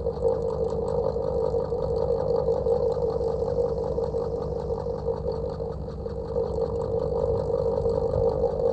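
Old household electric fan running steadily: a continuous whir with a low mechanical hum and a fast, even pulsing.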